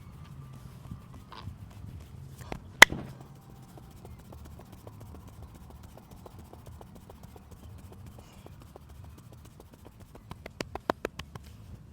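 Massage by hand: palms and fingers striking a person's body. There is one sharp, loud smack about three seconds in, faint light pats after it, and a quick run of about eight slaps near the end.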